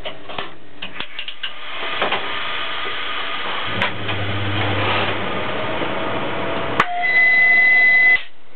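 Cab noise of a ChS4T electric locomotive: a few clicks and knocks near the start, a low hum for about a second and a half in the middle, then a sharp click and a loud, steady high-pitched signal tone lasting about a second near the end.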